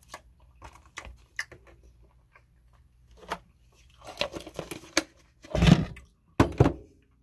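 Crinkling and clicking of a plastic crumbled-feta tub as a plastic fork scrapes it and its lid is handled. Near the end comes a heavy knock, the loudest sound, as the tub is set down, then two sharp knocks.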